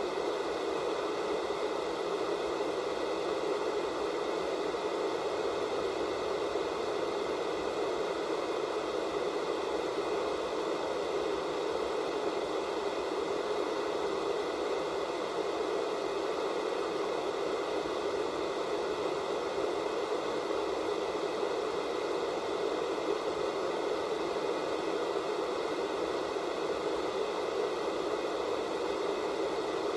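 Analog television static: the steady, even hiss of a TV set receiving no signal, with a few faint high steady tones in it.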